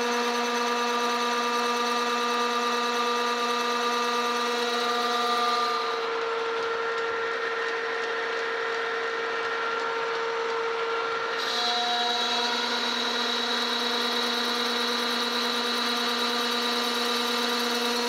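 Metal lathe running, a steady hum of several tones, while the cutting tool turns down the teeth of a change-gear blank, adding a high cutting hiss. The cutting sound stops about six seconds in and starts again about five seconds later while the lathe keeps running.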